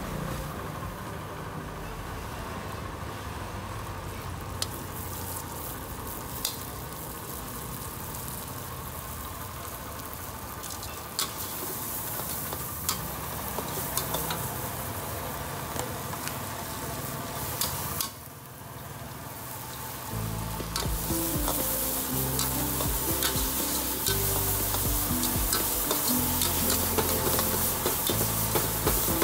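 Oil and ingredients sizzling in a steel wok while a metal spatula stirs and scrapes, with sharp clicks of the spatula against the pan. After a short break about two-thirds of the way through, the sizzling is louder.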